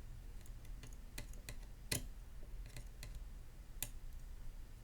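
Light, scattered metal clicks, about six, the loudest near the middle, as a precision screwdriver turns a small tri-wing screw out of an iPhone 13's internal shield plate.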